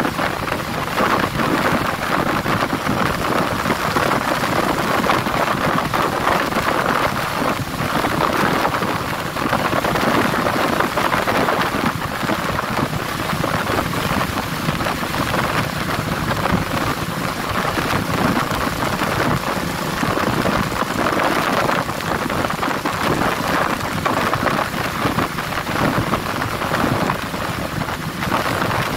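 Steady rush of wind noise over the microphone of a motorcycle under way, with no engine note standing out.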